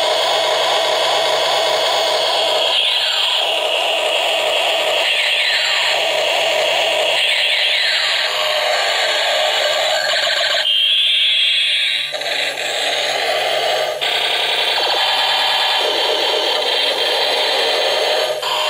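Battery-powered light-up toy plane playing its built-in electronic sound effects: a busy, siren-like mix with a sweeping tone that rises and falls about every two and a half seconds and changes pattern abruptly, over the steady hum of its propeller motor.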